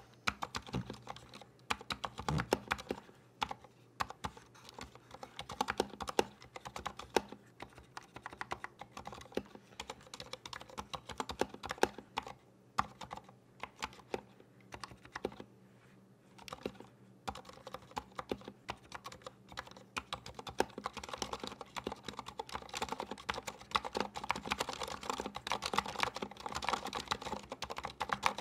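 Typing on a GamaKay LK67 mechanical keyboard fitted with Gateron Silent Black switches and PBT keycaps: a fast, irregular run of keystrokes with a couple of brief pauses around the middle and denser typing toward the end.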